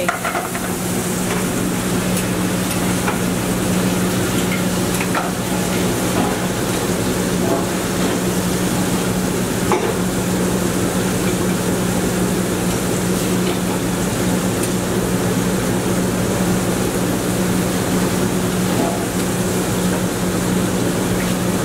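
Vegetables sizzling in aluminium sauté pans over gas burners, a steady frying hiss, under a constant low hum, with an occasional faint knock of a pan or utensil, the clearest about ten seconds in.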